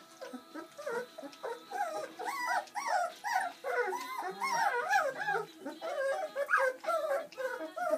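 Several young Bernese Mountain Dog puppies whining and squeaking over one another, a steady stream of short cries that rise and fall in pitch.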